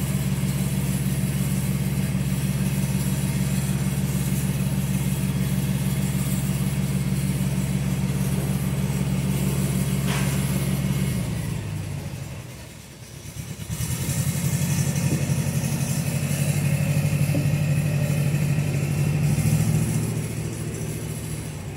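A vehicle engine running at a steady idle. About twelve seconds in it dies down, then it picks up again and runs steadily a little higher before easing off near the end.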